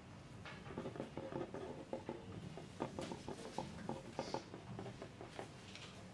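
Exam-room ambience: a quick flurry of small taps and rustles from pencils and paper being handled on desks. It starts about half a second in and dies away about five and a half seconds in.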